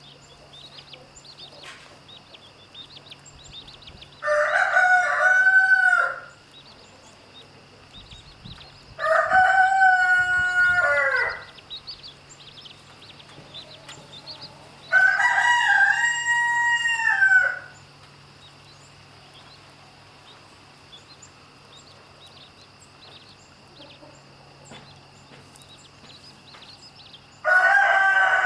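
Rooster crowing: four drawn-out crows of about two seconds each, the first three about five seconds apart and the last starting near the end after a longer pause.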